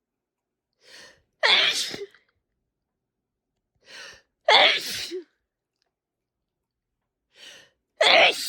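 A person sneezing three times, about three seconds apart, each loud sneeze preceded by a short, fainter intake of breath; the third sneeze comes near the end.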